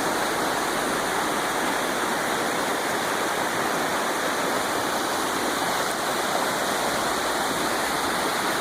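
Creek water rushing and splashing steadily over rocks, an even, unbroken noise.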